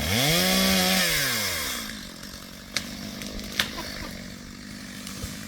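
Chainsaw engine revving up sharply, held at full throttle for about a second, then dropping back down. Two sharp clicks follow later.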